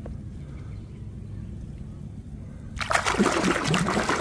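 A low background rumble with one light tap at the start. About three seconds in, loud irregular splashing and sloshing begins as a hand scrubs a muddy plastic toy under the water.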